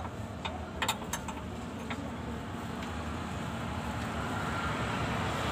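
A few light metal clicks from a hand tool on the clutch fittings under the truck in the first two seconds, over a steady rumble of road traffic that slowly grows louder.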